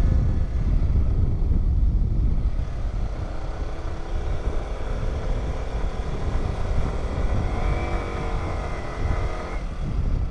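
Yamaha sport motorcycle riding along, with heavy wind buffeting on the microphone over the engine. About halfway through, a steadier engine tone comes up and wavers in pitch, then cuts off sharply near the end.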